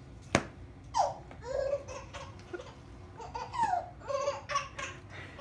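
A baby laughing in repeated short, high-pitched giggles with falling pitch. There is a single sharp knock just before the laughter begins.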